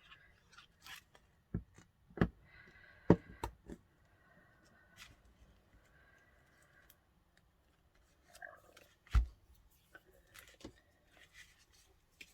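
Paper and card being handled on a craft desk: light rustling and sliding, broken by several sharp taps and knocks, the loudest about two and three seconds in, and a low thump about nine seconds in.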